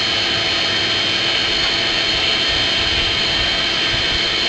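Forge air blower running steadily, a constant whine over a rushing hiss as it forces air into the fire to bring the metal up to heat.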